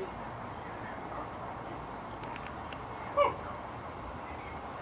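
Crickets chirping steadily in the background. A single brief, pitched call cuts in about three seconds in and is the loudest sound.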